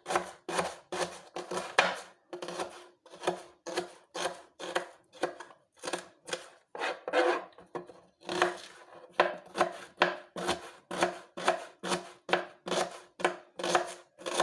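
Onion being chopped by hand with a knife: a steady run of short strokes, about two a second.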